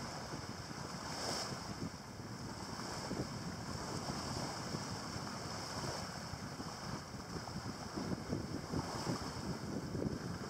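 Wind noise on the microphone in uneven gusts over a steady hiss of water passing the hull of a sailboat under way on calm water.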